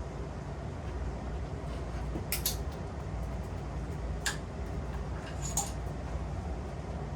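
Metal tools and parts clinking sharply three times during motorcycle disassembly, the last clink ringing briefly, over a steady low workshop rumble.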